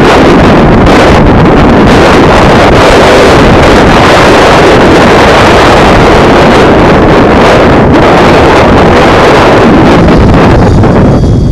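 Heavy wind noise buffeting the microphone over the rotor and motor noise of an electric Compass 6HV RC helicopter in fast flight.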